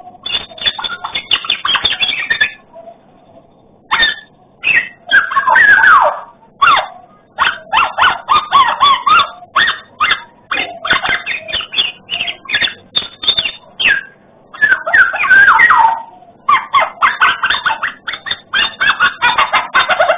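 Black-naped oriole (kepodang emas) singing a loud, fast run of short chattering notes and swooping whistles in bursts, pausing briefly about three seconds in and again near fourteen and sixteen seconds, heard through a CCTV camera's microphone.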